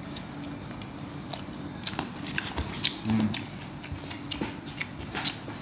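A child chewing food, with scattered light clicks and knocks from steel plates and hands being moved about.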